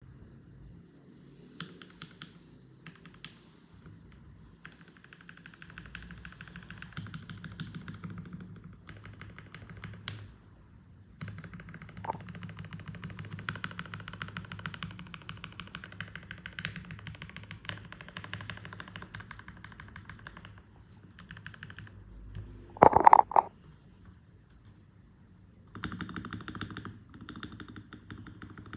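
Typing on a mechanical keyboard fitted with Gateron Milky Yellow Pro linear switches: several runs of rapid key clacks with short pauses between them. One brief, much louder knock or thud stands out about two-thirds of the way through.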